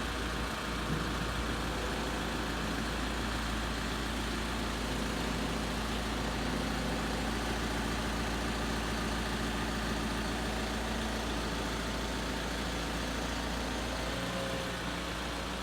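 Engine of a heavy forklift running steadily while it carries a load, with the deepest part of the rumble dropping away near the end.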